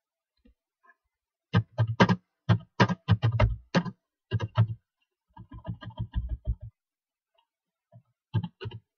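Computer keyboard keys being typed in quick, irregular runs of clicks, a short pause, then a few more keystrokes near the end.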